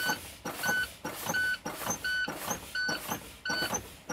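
Tractor-trailer low-air warning buzzer beeping about three times every two seconds, over short hisses of air released each time the brake pedal is pumped. Together they mean the air tanks are being drained below the low-pressure warning level.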